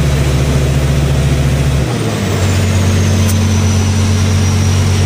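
Bulldozer diesel engine running steadily under load as it tows a broken-down excavator, heard from the open cab; the engine note shifts to a different pitch about two seconds in.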